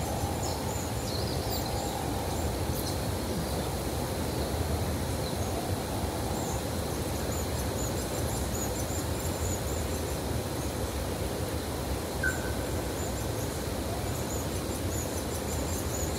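Forest ambience: a steady low background noise, with small birds giving thin, high-pitched chirps over and over throughout. A single short whistled note sounds about twelve seconds in.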